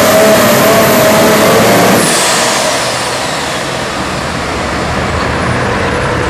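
Pro Stock pulling tractor's turbocharged diesel engine at full throttle under the sled's load, shut back about two seconds in as the pull ends. The turbo's high whine then winds down in a falling glide.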